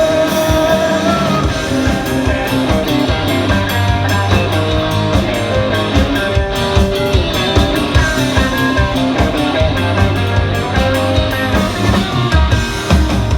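Rock band playing the song's instrumental passage between sung lines, with guitar to the fore over a steady beat.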